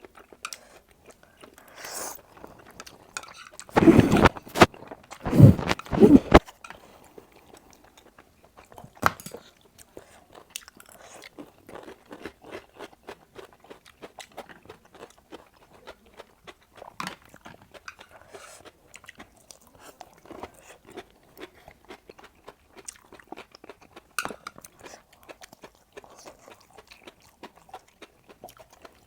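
Close-miked eating: chewing and biting on a mouthful of food, with many small wet clicks and smacks. A much louder burst of bites about four to six seconds in.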